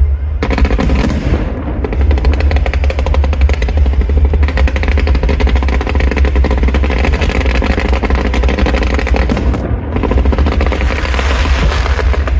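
Fireworks crackling in a dense, rapid, continuous run of sharp pops. It eases briefly just before ten seconds in, then resumes.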